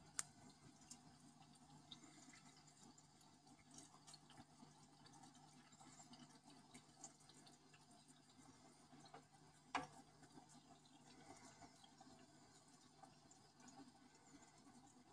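Near silence: faint aquarium water sounds with scattered small ticks, and two sharper clicks, one just after the start and one about ten seconds in.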